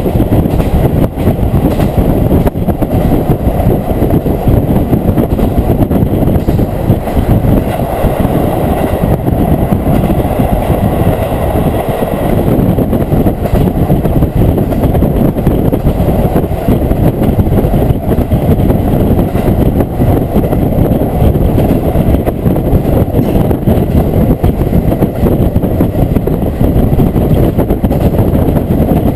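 Diesel railcar running along the line, its engine and the steady rumble of wheels on the rails heard from inside the carriage.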